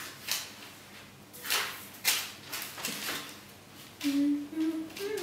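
Soft rustles and handling noises of yeast dough being pressed into a plait on a baking-paper-lined tray, coming as short scrapes about once a second. Near the end there is a brief hummed voice in two short notes.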